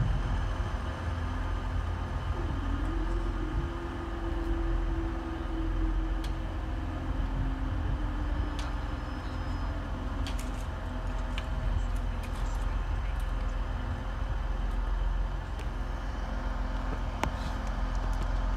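Low steady rumble of road vehicles waiting at a level crossing while the barriers lift, with a hum for several seconds from about three seconds in and a few faint clicks.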